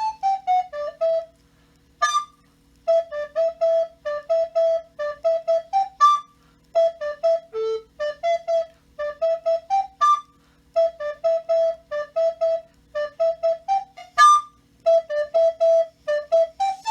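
Alto recorder playing a quick tune in short detached notes, grouped in phrases with brief gaps between them. A sharp, loud higher note comes about every four seconds.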